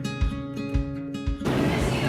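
Background music: strummed acoustic guitar over a steady beat of low thumps about twice a second. It cuts off suddenly about one and a half seconds in, giving way to steady background noise.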